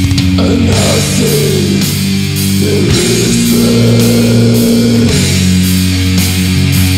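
Old-school death metal recording: heavily distorted guitars holding low chords that change every second or two, over drums with a cymbal struck about twice a second.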